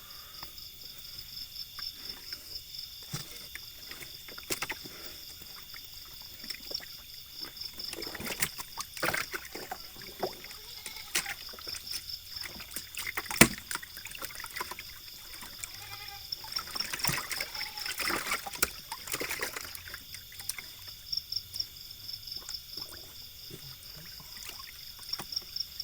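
Water sloshing and trickling with irregular splashes and knocks, the sharpest about 13 seconds in and a busier patch of splashing near the end. A steady, fast-pulsing high insect trill runs underneath.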